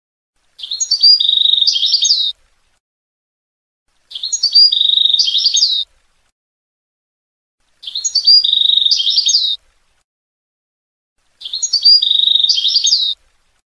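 European goldfinch song in the Levantine ('Shami') style: the same short twittering phrase, about two seconds long, comes four times, each the same as the last, with dead silence between.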